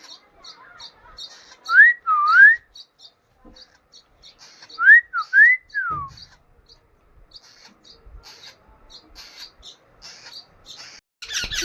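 Young pet parrot chirping in short high squeaks again and again, with clear whistled notes gliding up and down about two seconds in and again around five seconds in.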